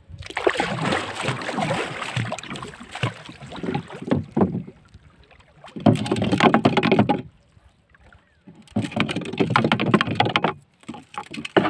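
Small-boat water and handling noise: water sloshing and splashing around the hull in three long rough bursts, while a weighted handline is paid out by hand off a wooden spool.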